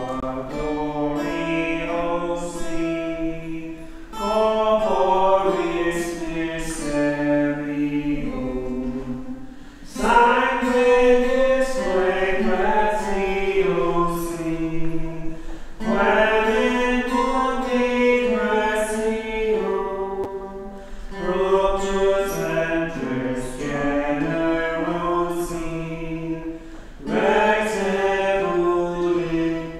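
A slow hymn sung in long held notes, in phrases of about five or six seconds with a brief breath between each.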